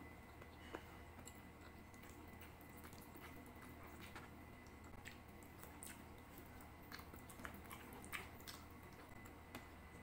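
Soft chewing and wet mouth sounds of someone eating adobo chicken by hand, with scattered small clicks and smacks over a faint steady hum.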